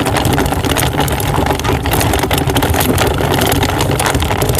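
A loud, steady low rumble like a motor running, with a rough crackle over it.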